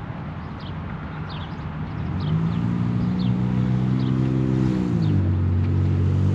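A motor vehicle's engine grows louder from about two seconds in, then drops in pitch at about five seconds. Birds chirp over it in the first part.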